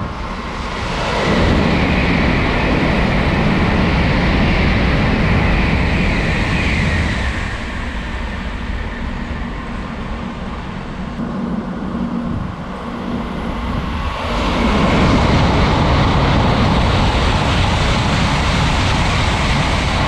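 Tokaido Shinkansen N700-series trains passing through the station at speed: a loud rushing noise of wheels and air that builds about a second in, eases in the middle, and swells again near the end as another train passes close by.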